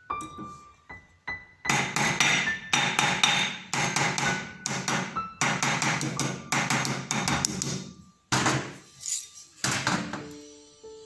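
Rapid hammering on metal, several blows a second with short ringing after each. The hammering most likely comes from reshaping or resizing the silver ring. Background music plays underneath.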